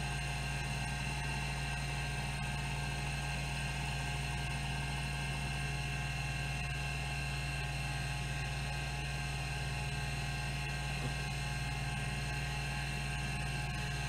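Rodime RO252 10 MB hard drive running with its 3600 rpm spindle giving a steady hum and high whine, while its band-driven swing-arm stepper actuator steps the heads back and forth across the tracks during a seek test.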